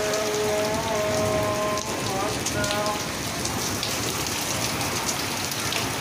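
Heavy rain pouring steadily on rooftops and trees in a downpour. In the first three seconds a few held tones that step in pitch, like a distant voice or melody, sound faintly over the rain.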